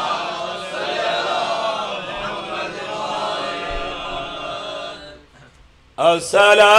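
Congregation chanting the salawat in unison in answer to the reciter's call, a blended crowd of men's voices that fades out after about five seconds. After a short lull, a single man's voice comes in loud through the microphone with a melodic, wavering held note, beginning the sung recitation of the sermon.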